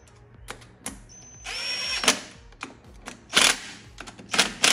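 Cordless power driver running in several short bursts as it snugs the ignition coil's mounting screws on a small lawn-tractor engine, with the coil's air gap set against the flywheel magnet.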